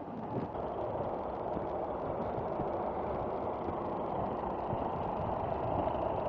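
Steady background noise of town street traffic, a constant hiss-like rumble without distinct events.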